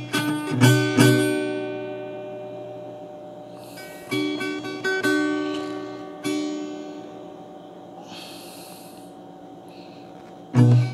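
Background music: an acoustic guitar plucking a few quick notes in the first second, then single notes about four, five and six seconds in, each left to ring and fade.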